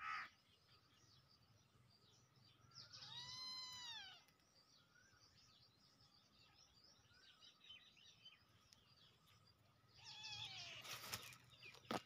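A young kitten meowing faintly twice: one call about three seconds in that rises and falls in pitch, and a second near the end that falls. Faint bird chirping comes in between.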